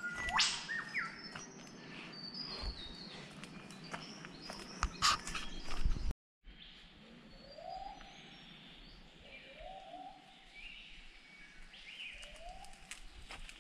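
Rainforest birds calling: a sharp rising whistle near the start, then a low rising-and-falling call repeated three times over the second half, with higher chirps around it. Footsteps and brushing on the forest trail in the first half, broken by a brief dropout about six seconds in.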